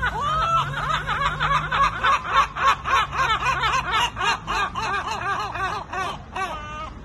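Two large gulls giving their head-thrown-back long call: a drawn-out opening wail, then a fast run of short yelping notes, about five a second, that tails off near the end.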